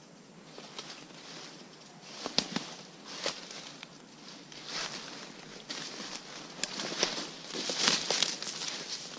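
Footsteps crunching through dry leaf litter and brushing through undergrowth, with sharp twig snaps, irregular and louder about two seconds in and again near the end.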